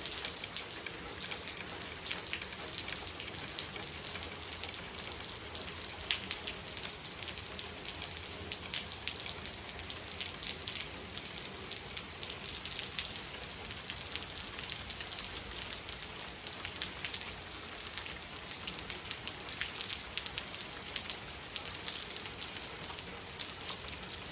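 Steady rain falling: an even hiss of rain with many separate drop ticks.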